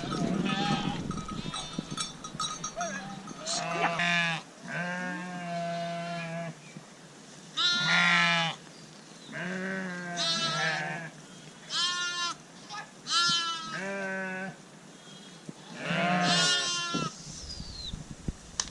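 Several sheep in a herd bleating one after another, about eight long, wavering bleats at slightly different pitches.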